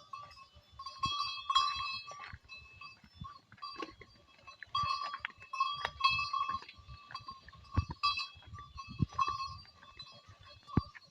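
Goats bleating repeatedly, several pitched calls in a row, with scattered low knocks between them.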